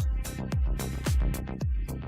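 Electronic background music with a steady beat: a deep kick drum about twice a second with hi-hat ticks between.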